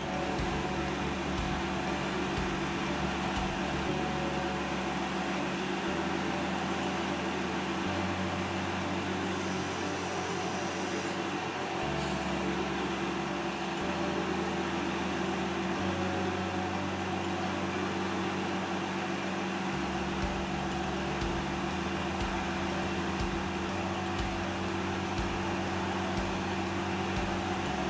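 Tractor engine running steadily while its hydraulics raise and lower a double link trencher plow. The low engine tone steps up and down every few seconds as the cylinders work, with a brief hiss about ten seconds in.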